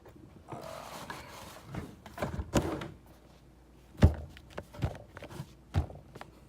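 Handling of a cardboard shoe box and its shoes: a stretch of rustling near the start, then several dull knocks and thuds, the loudest about four seconds in.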